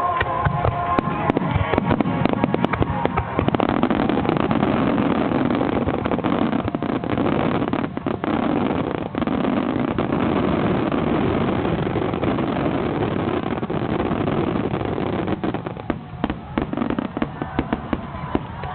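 A dense barrage of aerial fireworks: many shell bursts in quick succession merging into a continuous din, thinning out into more separate bangs near the end.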